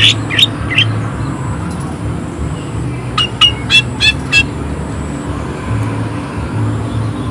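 Cucak ijo (green leafbird) giving short, sharp, harsh 'shot' notes in two quick runs, a few right at the start and about five more around the middle, over a steady low rumble.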